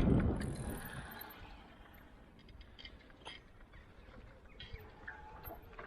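Loud running noise from a Bosch Performance Line Speed e-bike mid-drive motor, which the owner suspects has something broken inside, dying away within the first second. After that there are only scattered light clicks and ticks.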